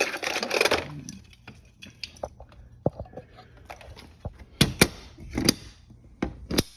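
Fire alarm devices being handled and set down: a short rattling clatter at the start, then scattered sharp clicks and knocks, several in quick succession about two thirds of the way through.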